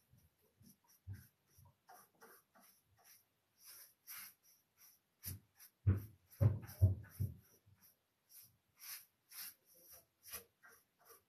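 A paintbrush swishing in short strokes, about two a second, as it spreads sealing-wax top coat over the painted wood of a cedar chest. A cluster of dull knocks comes about halfway through as the wax can is handled.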